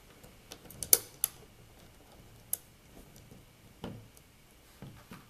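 Scattered sharp clicks and light knocks, about seven in all, as a bevel gear is fitted back into a metal version 2 airsoft gearbox shell over the anti-reversal latch.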